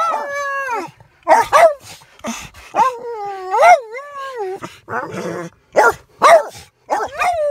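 Boston terrier throwing a loud, excited fit inside a car: long wavering howls that bend up and down in pitch, broken by a string of short sharp barks, with a fresh howl starting near the end.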